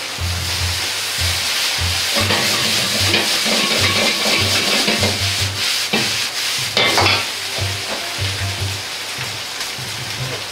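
Fried rice and lettuce sizzling in a carbon-steel wok over a high gas flame while a metal ladle stirs and scrapes through it. There are sharp clanks of the ladle against the wok, the loudest about six to seven seconds in as the rice is tossed.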